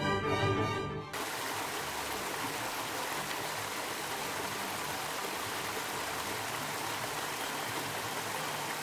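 Brass-led orchestral music cuts off about a second in, giving way to the steady rush of a stream of water pouring over and around boulders.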